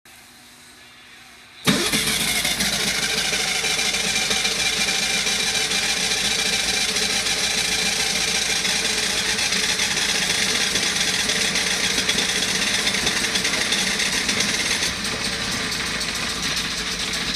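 Mercury Mark 35A two-stroke outboard motor starting about two seconds in, catching at once and then running steadily. It settles slightly quieter near the end.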